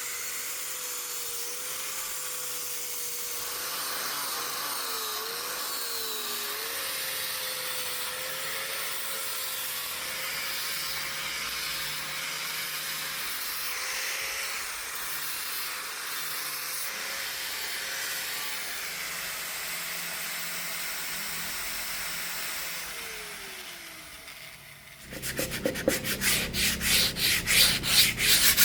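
A power sander runs steadily against hardwood, its motor whine wavering slightly, then winds down a little over 23 seconds in. About 25 seconds in, louder rapid back-and-forth strokes of sanding or rasping on wood begin.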